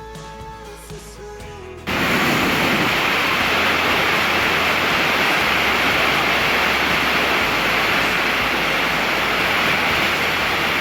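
Music plays, then about two seconds in it cuts off abruptly and a loud, steady rush of water takes over without rising or falling.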